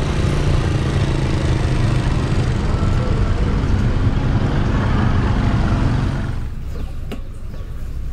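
Motorcycle engine running steadily at low pitch, the sound dropping away about six seconds in.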